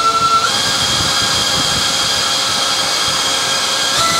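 Electric ducted fans on a model jet wing running on a bench, with a steady high whine over rushing air. About half a second in they step up in speed and pitch, hold there, and drop back near the end.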